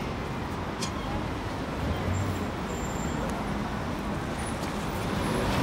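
City street traffic: cars and buses running past with a steady low rumble.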